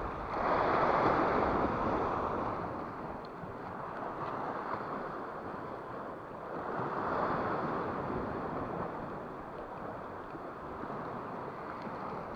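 Sea waves washing against a rocky shore, surging louder about a second in and again around seven seconds.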